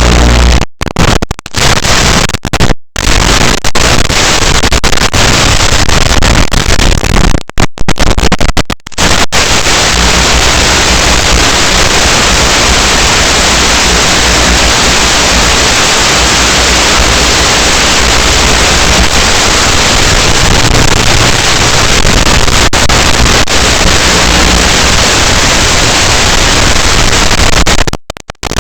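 Loud, steady white-noise static hiss, cut by several brief total dropouts in the first nine seconds and again near the end.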